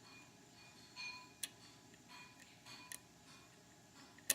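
Faint metallic clicks and light scraping of a steel hook pick working the pins of a CX5 high-security mortise cylinder under tension: a few sparse, sharp ticks, the loudest near the end.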